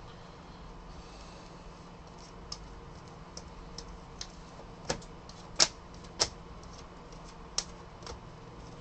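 Basketball trading cards being handled at a table: a scattered series of sharp snaps and taps as cards are flicked through and set down, the loudest a little past halfway, over a faint steady hum.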